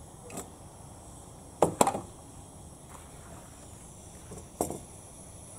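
Clanks and knocks of a metal mess tin being lifted off a gas cartridge stove and set down on a table mat: two sharp clanks about a second and a half in, a lighter knock near the start and another pair near the end as the stove is handled.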